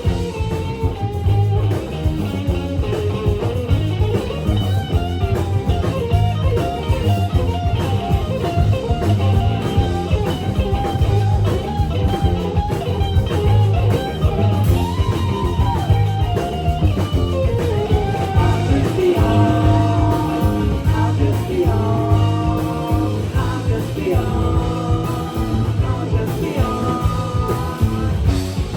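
Live rock band playing, led by guitar over bass and drums, with singing.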